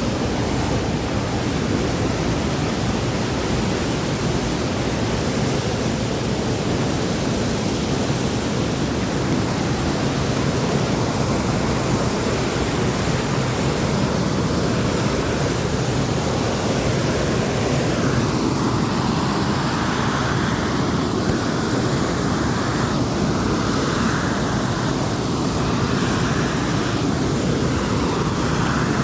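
Waterfall rushing steadily: a dense, even noise of falling water that does not let up.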